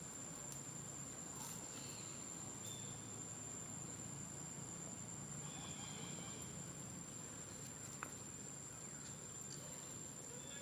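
Outdoor ambience with an insect trilling on one steady high-pitched note throughout, and a single faint click about eight seconds in.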